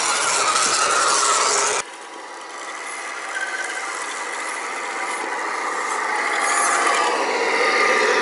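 Electric motors and gearboxes of scale RC 4x4 trucks whining as they drive through a muddy puddle, with water splashing at the tyres. The sound drops suddenly about two seconds in, then the whine builds steadily louder toward the end.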